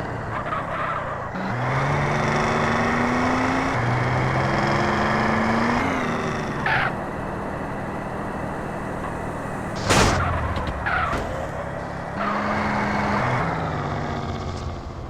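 Radio-controlled car driving, its motor whine rising and falling in pitch over a steady rushing noise, with a sharp crack about ten seconds in.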